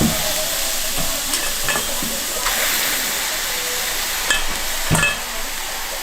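Thick beef skirt steak sizzling on a hot cooking surface, a steady frying hiss, with several sharp clinks and knocks of metal utensils against it, the loudest about five seconds in.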